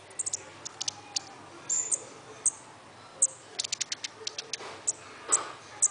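Caged songbird giving short, high, sharp chips, mostly one at a time, with a quick run of about six a little past three and a half seconds in.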